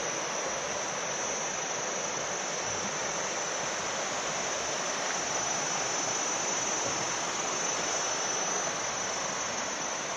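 Rain-swollen river flowing, a steady rushing of water, with insects keeping up an unbroken high-pitched drone over it.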